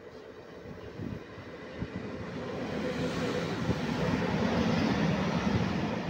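ET22 electric locomotive hauling a freight train of open wagons past at speed, its running noise growing louder as it approaches and passes, then the steady rumble of the wagons rolling by.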